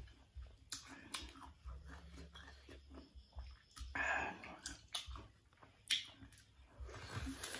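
Close-up chewing and biting of crisp unripe green mango: irregular short crunches and mouth clicks, with a louder crunching sound about four seconds in.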